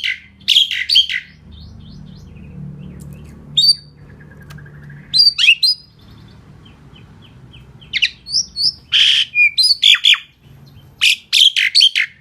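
Starling calling: bouts of short, harsh, rasping notes mixed with brief whistled glides and clicks, the way a starling's chattering song runs, with quieter spells of softer notes between the loud bouts.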